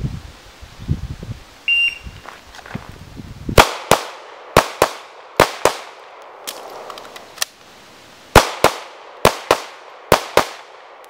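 A shot timer beeps once, briefly. A Sig P226 9mm pistol then fires a string of shots in quick pairs, stops for about two seconds during the reload, and fires six more shots in three quick pairs.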